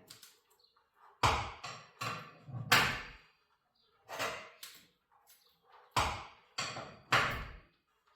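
Steel winding bars knocking against a garage door torsion spring's winding cone and fittings as the spring's tension is let off bit by bit: about eight sharp clanks in small irregular groups.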